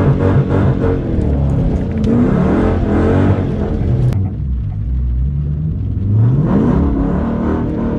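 Straight-piped Dodge Challenger R/T V8 revving hard: the engine note climbs about two seconds in, drops off sharply around four seconds, and climbs again about six seconds in.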